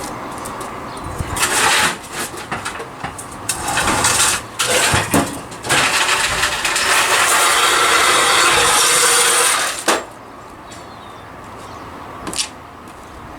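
Knocks, clatter and scraping of hand tools and metal exhaust parts as the hoses are disconnected and the exhaust is worked loose under the car. About halfway through, a loud, steady rushing noise runs for about four seconds, then cuts off suddenly.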